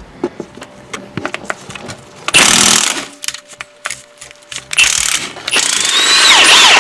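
Impact wrench with a 14mm socket running in three bursts as it loosens and spins out a strut pinch bolt, the last burst long, its whine gliding up and down in pitch near the end; small clicks of the tool and socket handling between bursts.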